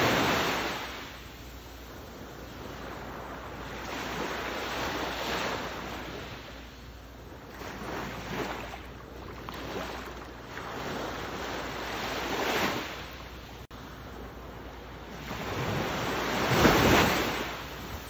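Ocean waves washing in, in slow surges a few seconds apart that swell and fade. The loudest wave breaks near the end.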